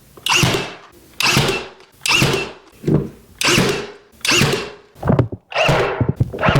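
Ryobi P322 18-gauge cordless brad nailer driving nails into baseboard trim, firing about eight times at roughly one shot a second, each shot a sharp thunk that fades quickly.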